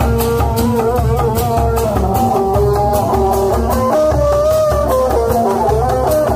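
Loud music from a procession's horn-loudspeaker rig: a plucked-string melody with sliding notes over a steady drum and bass beat.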